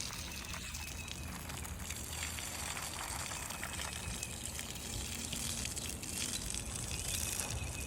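Water spraying steadily onto a freshly poured concrete slab, soaking it to keep it wet while it cures.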